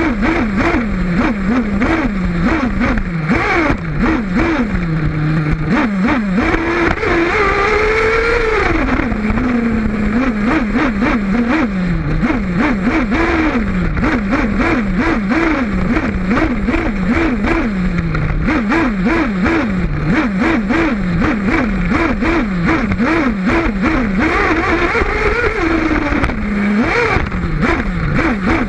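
Two-stroke nitro engine of a Kyosho Inferno Neo 1/8-scale buggy, picked up by a camera on the car, revving up and down as the throttle is worked through corners, its pitch rising and falling two or three times a second. About seven seconds in it climbs to its highest pitch and holds there for a second or two before dropping back.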